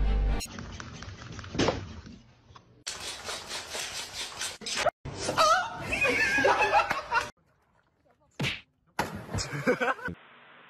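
People laughing and talking in a string of short snippets, each cut off suddenly, with a faint steady hiss near the end.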